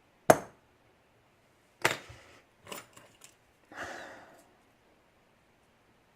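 Sharp clicks and taps of small metal tools on a lock's pin chamber, with a short scrape about four seconds in, while a stuck pin spring is worked out of its chamber. The spring sticks because two springs are doubled up in the chamber.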